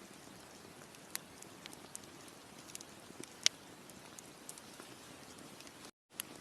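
Campfire crackling: a steady low hiss of burning wood with scattered sharp pops and snaps, one louder pop about halfway. The sound cuts out completely for a moment near the end.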